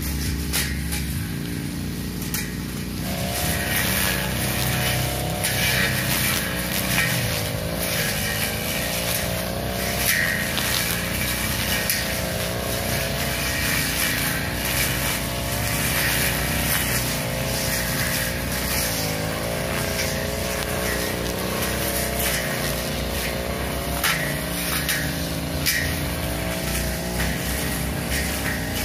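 Two-stroke 328 brush cutter with a long 45 cm blade running at cutting speed, the engine note wavering as the blade sweeps back and forth through grass and weeds. The revs pick up about three seconds in.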